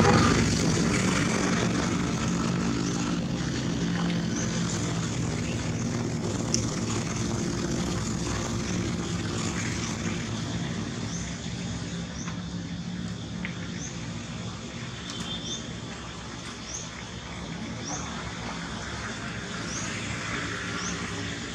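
A steady engine drone, loudest at the start and slowly fading away. Short high rising chirps repeat about once a second over it, growing clearer in the second half.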